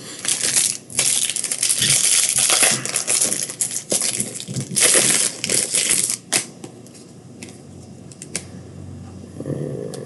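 A trading-card pack's foil wrapper crinkling and rustling as it is handled and opened, in dense spells for about the first six seconds. After that it goes quieter, with a few light clicks and taps.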